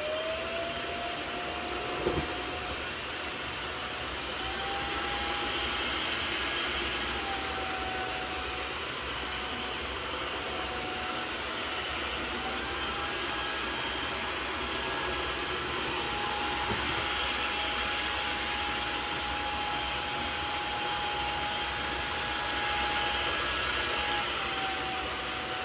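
Tineco Floor One F3 cordless wet-dry vacuum running steadily. Its motor whine steps up and down in pitch several times as the suction level changes. There is a brief knock about two seconds in.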